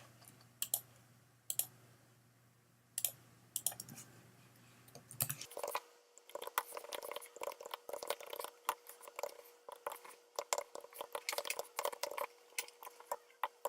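Typing on a computer keyboard: a few scattered keystrokes, then fast, steady typing from about five seconds in.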